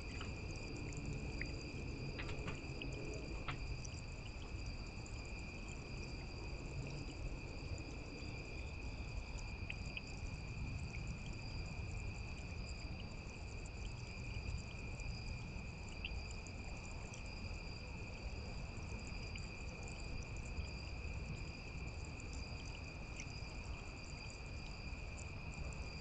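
Crickets chirring steadily in a night chorus at one unchanging high pitch, over a low, even rush of running water from a small garden fountain.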